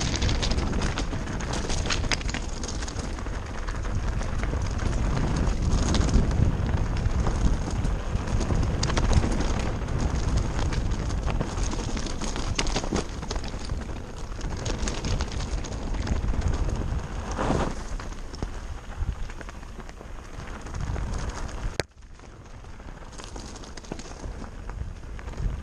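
Mountain bike descending a rocky trail at speed: wind buffeting the camera microphone, with tyres crunching over loose limestone scree and constant clatter and knocks from the bike. The noise drops suddenly about 22 s in, then carries on a little quieter.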